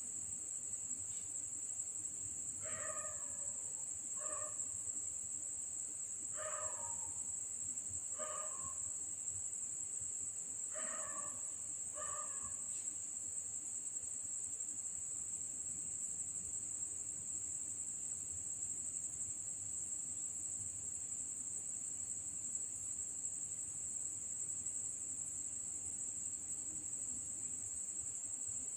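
Crickets trilling in one steady high-pitched chorus. In the first half, about six short calls fall in pitch, a second or two apart, then stop.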